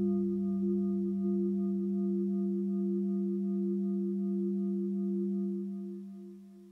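Yamaha TX802 FM synthesizer holding a single low sustained tone with a few steady overtones and a slight waver, fading out over the last second as the final note of the piece dies away.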